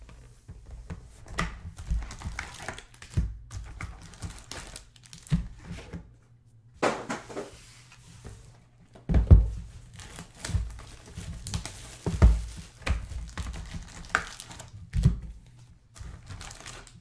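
Panini Excalibur basketball card packs and their box being handled: wrappers crinkling and tearing, with repeated dull thuds as packs and box are set down on the table.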